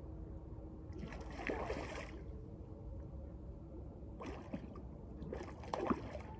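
Water splashing in three bursts, the last the loudest: a hooked fish thrashing at the surface as it is played in on a bent rod.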